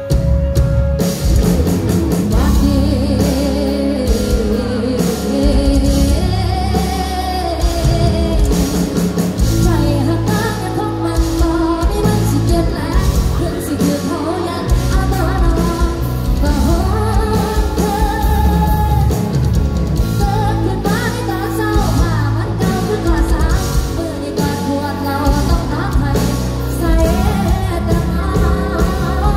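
Live band on a concert PA playing a pop-rock song: a lead singer over keyboard, drum kit and backing vocals. The singing comes in about a second in and carries on throughout.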